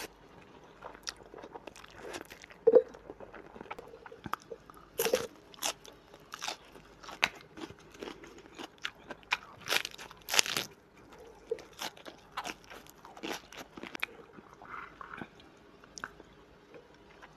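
Close-up eating sounds: noodles drawn into the mouth at the start, then chewing with irregular crisp crunches and wet mouth clicks as a lettuce leaf is bitten and chewed, the loudest crunches about ten seconds in.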